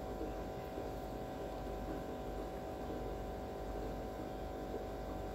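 Steady electrical hum made of several fixed tones over a low rumble, unchanging throughout.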